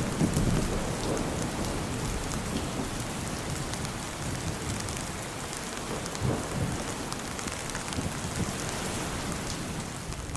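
Heavy rain falling steadily, with many small drops ticking on a surface and a low rumble underneath that is strongest in the first second or so.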